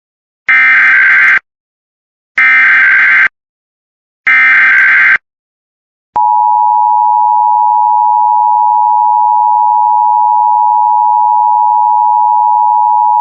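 Start of an Emergency Alert System broadcast test: three short bursts of SAME header data tones, each just under a second long and about a second apart, then the steady two-tone EAS attention signal beginning about six seconds in.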